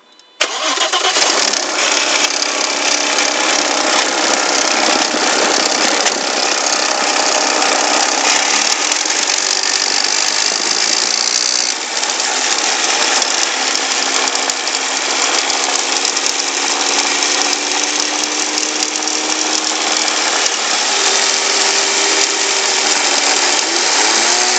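Audi A4 B5's 2.8-litre V6 engine running, revved in the 1500–3000 rpm range, its pitch slowly rising and then swinging up and down near the end, with an odd noise that the owner calls weird.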